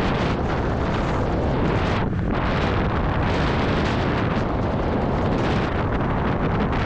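Wind buffeting a GoPro's microphone on a moving electric scooter: a loud, steady rumbling rush, with a brief thinning of the hiss about two seconds in.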